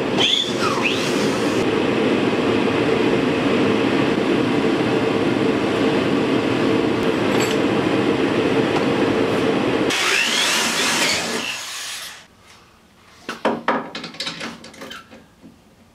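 Electric drill running steadily as it bores into a small boat's gunwale, with a constant motor hum; it stops about twelve seconds in, followed by scattered small clicks and knocks of handwork.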